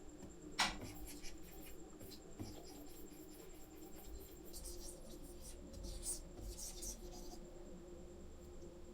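Stylus nib scratching in short strokes across a Huion graphics tablet's drawing surface, with a sharp click about half a second in and the strokes busiest in the second half.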